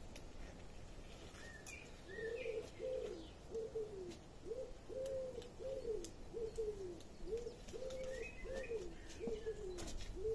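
A pigeon cooing: a long run of about a dozen low, evenly spaced coos. A few short high chirps from small birds and some light clicks come in alongside.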